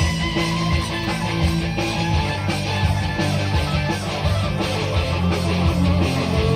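Guitar played in a continuous jam, a steady stream of strummed and picked notes with sustained low tones.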